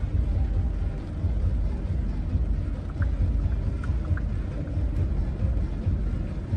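Rain and traffic on a flooded street: a constant low rumble under an even hiss, with a few faint short high chirps about three to four seconds in.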